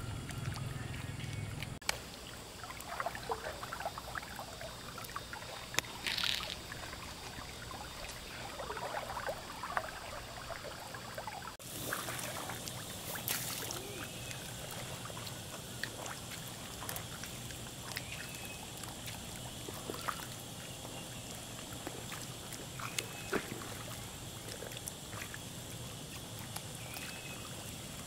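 Water trickling and sloshing steadily, with scattered light clicks and splashes.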